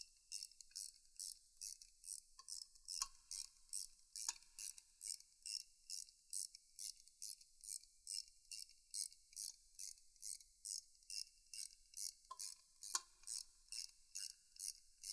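Faint high-pitched chirping that repeats evenly about three times a second, with a few light metallic clinks from parts being handled on the Triumph T120 cylinder head.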